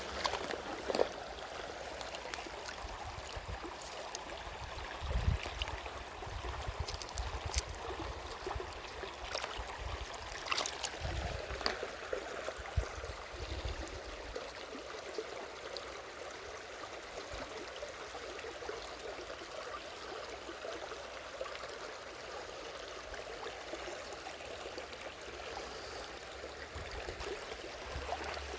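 Steady rush of water flowing at a waterfall, with a few scattered knocks and clicks in the first half.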